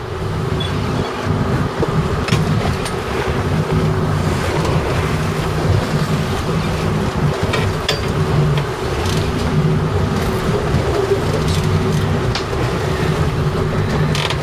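Fishing boat's engine running steadily at trolling speed, a low drone under the rush of wind and choppy water, with a few faint clicks.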